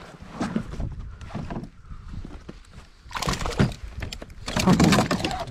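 A northern pike thrashing and splashing as it is hauled aboard a plastic fishing kayak, with knocks and scrapes against the hull, loudest in two bursts in the second half.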